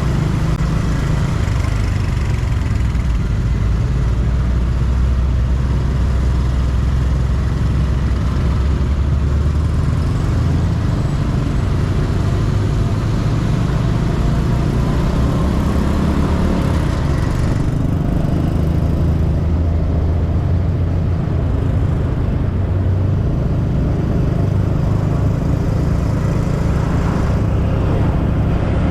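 Small motorcycle ridden along a road, its engine running steadily under way with a deep, constant rumble; the higher hiss above it thins out about two-thirds of the way through.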